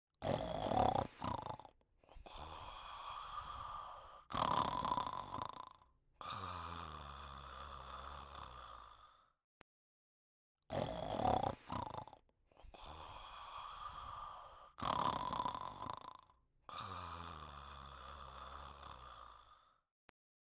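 Snoring in repeated rounds: a short loud snort, a longer drawn-out snore, another loud snort, then a long snore held at a steady pitch. A pause of about a second and a half follows, and the same sequence plays again.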